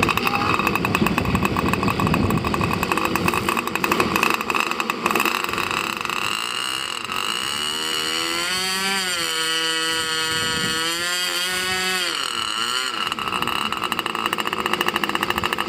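Model airplane engine running at high revs with a high whine, throttled back about eight seconds in and opened up again near thirteen seconds. Wind rumbles on the microphone in the first few seconds.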